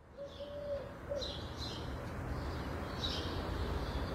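A dove cooing a low call in a long-then-short phrase, twice, while small birds chirp in short high notes, over a low steady rumble; the sound fades in over the first second.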